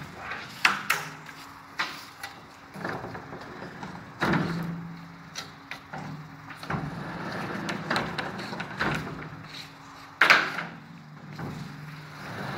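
Frameless accordion glazing of 10 mm tempered glass panels being slid and folded by hand along the top track: rollers running in the track, broken by a series of sharp knocks and clacks as the panels pivot and meet, the loudest about ten seconds in.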